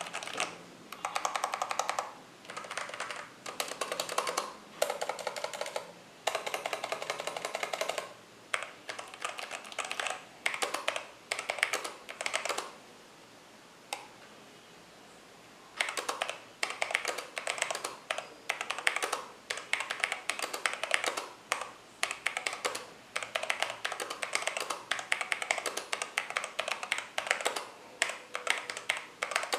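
Mechanical keyboard with Halo True tactile switches being typed on in quick bursts of keystrokes, with a pause of about three seconds around the middle.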